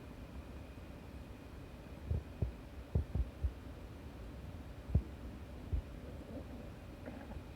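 Human stomach gurgling: a cluster of short, low gurgles and pops, then two more single ones a little later, over a faint steady hum.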